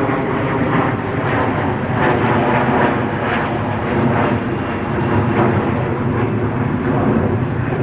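A fixed-wing airplane passing, its engine noise loud and steady throughout.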